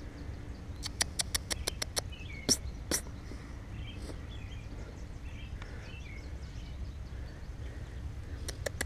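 Outdoor ambience: birds chirping now and then over a steady low rumble, with a quick run of sharp clicks about a second in and two louder clicks a little later.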